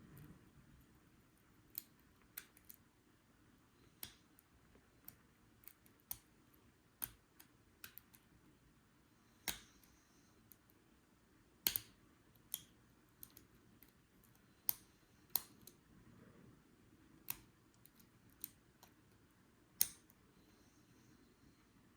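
Lock pick working the pins of a Paclock 90A Pro padlock under tension: sparse, irregular sharp metal clicks, a few of them much louder than the rest.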